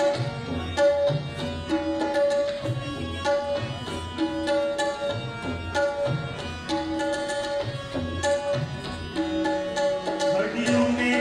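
Instrumental interlude of a Christian devotional geet: a harmonium plays a short melodic phrase again and again over a steady tabla rhythm. The tabla's bass drum gives deep strokes that bend in pitch.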